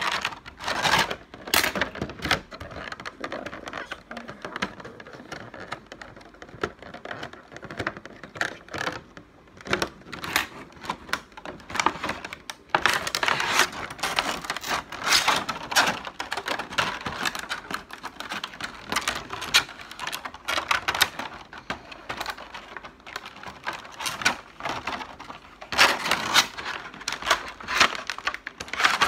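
Clear plastic packaging crinkling and crackling in the hands as an action figure is worked out of it, in uneven bursts of small clicks, busier a little after the middle and again near the end.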